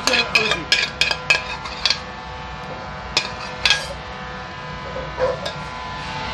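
Metal spoon scraping and knocking against a stainless steel mixing bowl as the sauce is scraped out: a quick run of clinks in the first two seconds, two more a little after three seconds, and a single one around five seconds.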